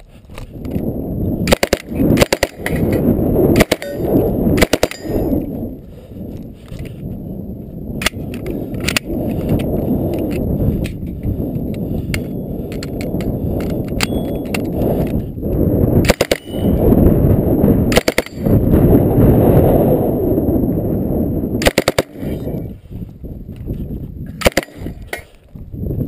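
Mk II Sten 9mm submachine gun firing short bursts and single shots at steel targets, a dozen or so separate strings with pauses of one to several seconds between them. A heavy low rumble runs underneath.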